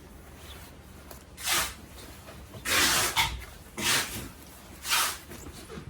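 A packaging bag being handled: four short bursts of rustling, the longest about three seconds in.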